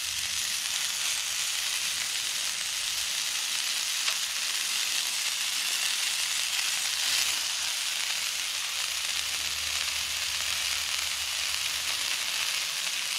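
Minced-meat kebabs frying in hot oil on a cast-iron skillet: a steady sizzle, with a couple of small pops as more kebabs are laid in the pan.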